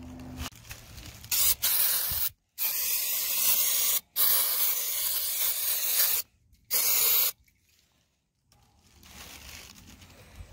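Aerosol can of mass airflow sensor cleaner spraying onto the sensor's screen in a series of hissing bursts, the longest about two seconds, stopping about seven seconds in.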